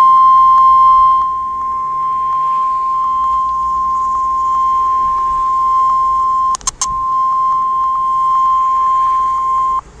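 NOAA Weather Radio 1050 Hz warning alarm tone: one steady, unbroken pitch held for nearly ten seconds. It cuts out briefly, with a few clicks, about two-thirds of the way through. The tone signals that a severe thunderstorm warning is about to be read.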